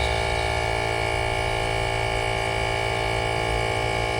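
Train horn kit's air compressor running steadily to charge the air tank: an unbroken drone of several fixed tones that does not change in pitch or level.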